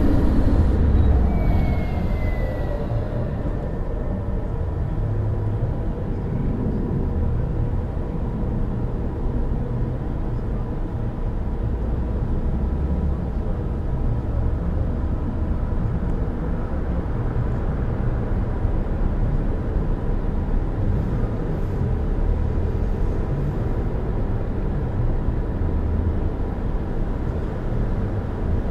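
A car driving along a city street: a steady low rumble of road and engine noise, a little louder for the first couple of seconds, with a brief high falling tone about two seconds in.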